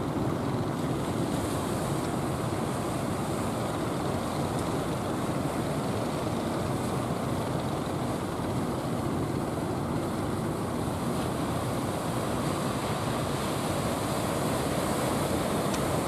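Ocean surf breaking and washing onto the beach, a steady rushing roar with wind on the microphone, swelling a little near the end as another wave breaks.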